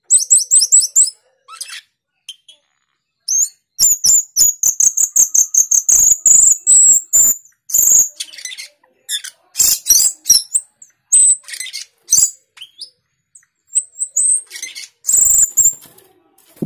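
Male Asian glossy starling calling: rapid bursts of high, squeaky chattering notes, densest about four to eight seconds in. Near the end there is a short wing flutter.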